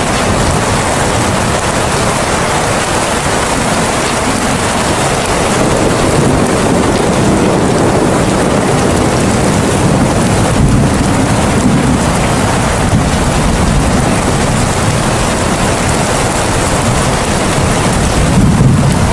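Steady, loud rushing noise like heavy rain, with a low rumble underneath: a rain-sound background track of the kind subliminal videos use.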